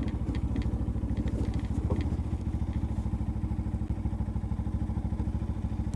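Motorcycle engine idling with a steady, even beat of about a dozen pulses a second.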